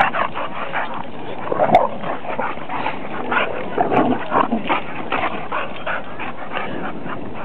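A Plott hound and a boxer play-fighting, giving short, irregular barks and yips, with a sharp click a little under two seconds in.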